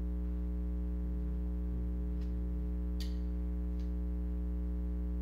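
Steady electrical mains hum with a stack of overtones, plus a few faint clicks about two, three and four seconds in as the toy's plastic mechanism is handled.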